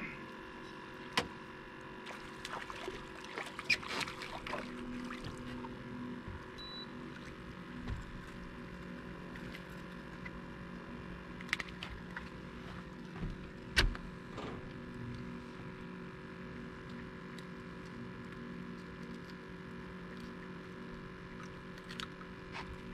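Spinning reel being cranked as a small trout is reeled in and swung aboard, with scattered clicks and a few knocks, the loudest about 14 seconds in, over a steady low hum.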